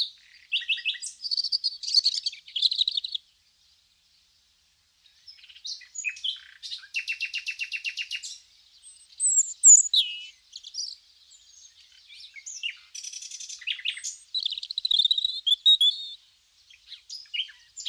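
Small songbirds chirping and singing in short high-pitched phrases and quick trills, in several bouts with a brief quiet gap a few seconds in.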